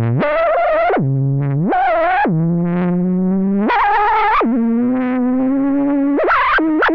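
Digital synthesizer playing a stochastic Bezier waveform: a run of held notes that swoop up or down in pitch from one to the next, their overtones wavering. Near the end the pitch warbles in quick scoops.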